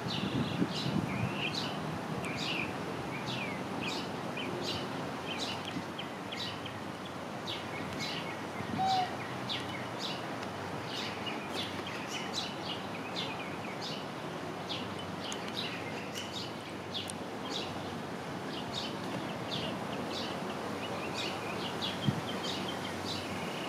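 Small birds chirping, many short sharp chirps following one another continuously over a steady background hiss, with one brief lower note about nine seconds in.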